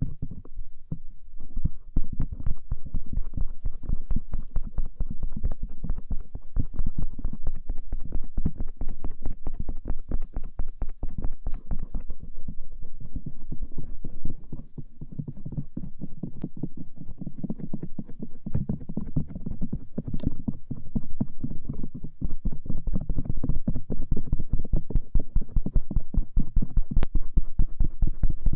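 Stainless steel ear pick scraping and rubbing over both outer ears, in rapid, continuous strokes with a few sharp clicks.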